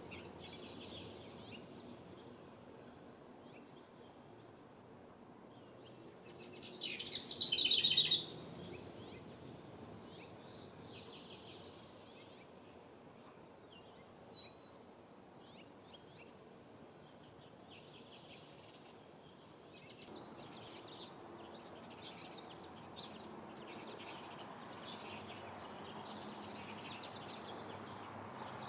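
Small songbirds chirping and singing in short calls, with a loud burst of rapid song about seven seconds in and scattered thin chirps after it.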